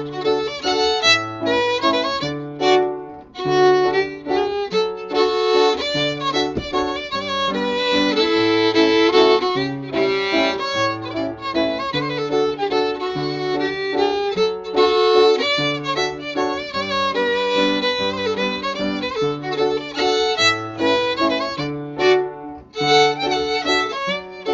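Fiddle playing a lively hambo melody, a Swedish old-time dance tune in three-four time, with piano accompaniment giving steady alternating bass notes underneath.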